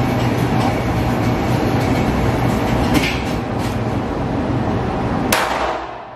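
A steady, loud rumble with a few sharp cracks, the sharpest about five seconds in. The rumble fades out just before the end.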